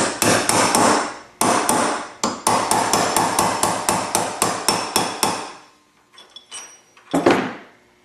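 A hammer drives a steel punch against old rivets in an AK rear trunnion held in a vise: a fast run of ringing metal-on-metal blows, about four a second, for some five seconds, with a brief pause after the first second. It is followed by a few light clicks and one heavier knock near the end.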